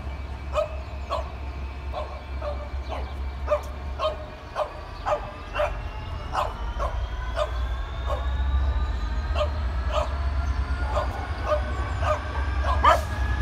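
Class 66 diesel locomotive's two-stroke V12 engine rumbling, its pitch climbing slowly through the second half as it powers up to move its freight train. Over it, short sharp yelps repeat about twice a second throughout.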